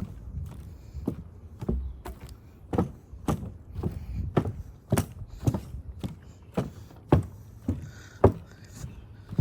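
Footsteps on a ridged, slip-resistant boardwalk: steady hollow knocks, about two steps a second.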